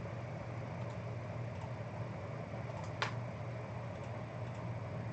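Steady low room hum with one sharp computer-mouse click about three seconds in, and a few fainter ticks around it.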